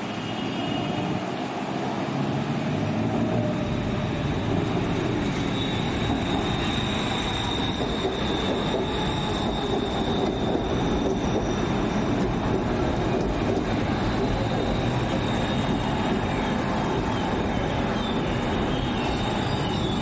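Bangkok BTS Skytrain elevated trains running past close by on the viaduct: a steady rumble of wheels on rail, with a high steady whine that joins about five seconds in and holds to the end.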